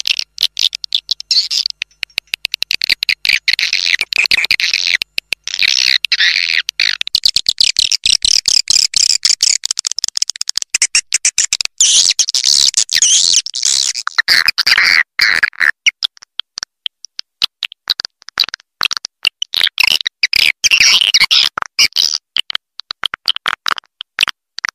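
Recorded edible-nest swiftlet calls: a dense, rapid chatter of high chirps and twitters, the looped lure call played at swiftlet houses to draw birds in to roost. It thins out for a couple of seconds past the middle.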